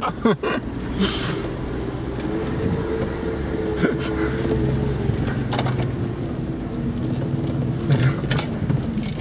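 Suzuki Jimny's engine running steadily at low speed, heard from inside the cabin on a bumpy dirt track, with a few short knocks and rattles from the body. The engine note drops a little about two-thirds of the way through.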